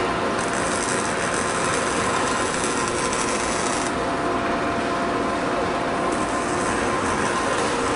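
Steady mechanical noise from a Motoman K10S industrial welding robot in operation, with faint steady whine tones. A high hiss comes in about half a second in, drops out near four seconds and returns around six seconds.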